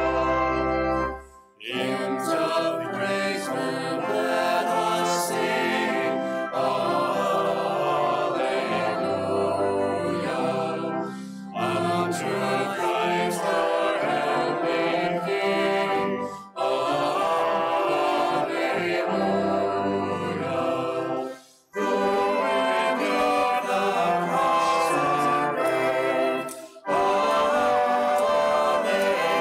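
A choir sings a hymn with sustained instrumental accompaniment, in phrases separated by short breaks roughly every five seconds.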